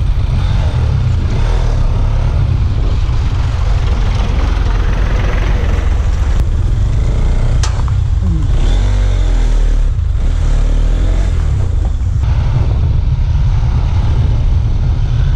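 Steady road noise of a moving motorcycle, with wind rumbling heavily on the microphone. A few short gliding tones sound around the middle.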